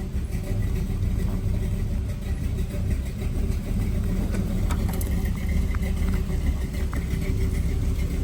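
Car engine idling steadily, a low rumble, with a few light clicks about halfway through.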